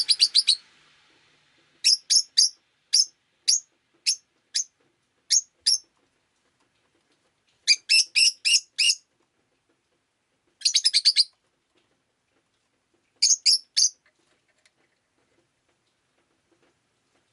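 Rosy-faced lovebird calling: sharp, high-pitched chirps, some single and some in quick runs of four or five. The calls stop a few seconds before the end.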